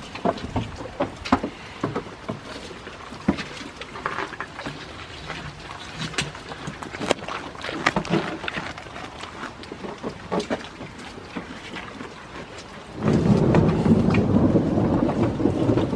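Rain falling, with many scattered sharp drips and clicks. About three seconds before the end a much louder rushing rumble starts suddenly: wind and handling noise on the camera's microphone.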